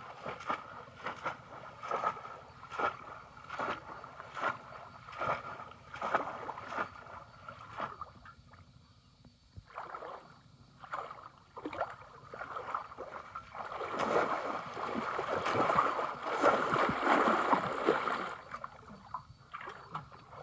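Shallow pond water splashing as bamboo polo fish traps are plunged down and people wade through it: regular splashes a little more than one a second, a quieter pause near the middle, then a longer, louder stretch of continuous sloshing in the second half.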